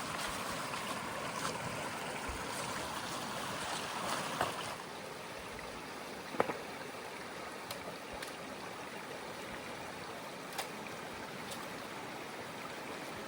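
Creek water rushing steadily, with a few brief sharp clicks about a third and halfway through.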